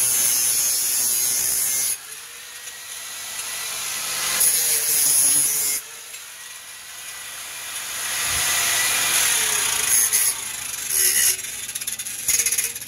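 Electric angle grinder with a cut-off wheel cutting a thin metal strip clamped in a bench vise: a loud, high-pitched grinding screech. It drops off suddenly about two seconds in and again near six seconds, builds back up each time, and ends in short bursts.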